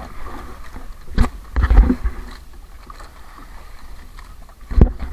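Small wooden outrigger boat on a choppy sea: steady water and wind noise with a few heavy thumps, about a second in, again just after, and once near the end, as the hull knocks against the waves.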